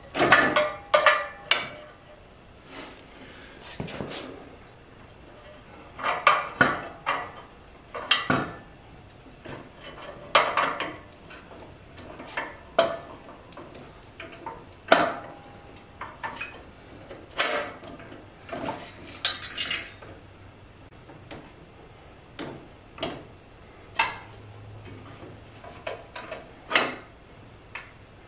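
Steel 3-point quick hitch and its pins being handled on a concrete floor: irregular metallic clanks, clinks and scrapes as the pins are pulled and the frame is lifted and turned over.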